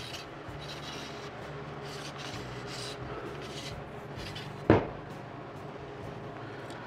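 A range rod pushes a greased Scotch-Brite pad on a jag down the bore of a .36 caliber flintlock rifle barrel, making a steady low scraping and rubbing as the pad scours burrs from the rifling. One sharp thump comes a little under five seconds in.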